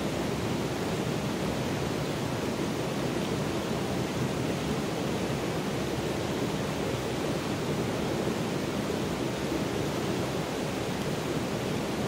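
Shallow stream flowing over rocks: a steady rush of water.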